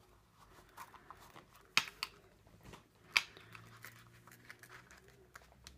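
Hands handling a small stitched leather pouch: faint rustling of the leather and a few sharp clicks, the two loudest about two and three seconds in.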